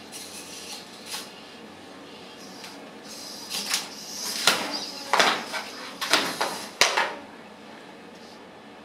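Two small metal-framed humanoid fighting robots clattering as they grapple and topple over onto the ring mat: a run of rattling knocks and scrapes from about three and a half to seven seconds in, ending in one sharp knock.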